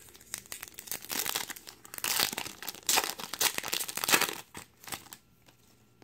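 Foil wrapper of a 2017 Topps Update Series hobby pack being torn open and crinkled by hand. The crackling runs thick for a few seconds and dies away about five seconds in.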